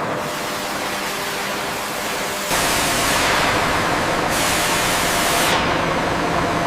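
Heavy-machinery factory noise: a steady mechanical hum under a constant hiss, with two long hissing blasts about two and a half seconds in, each lasting a second or more and the second cutting off sharply.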